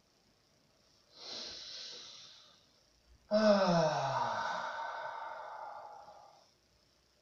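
A man breathing deeply while holding a stretch: a breath, then a long voiced sigh of about three seconds, sliding down in pitch.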